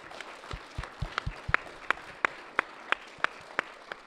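Applause: sharp hand claps close to the microphone, about three a second, over fainter clapping.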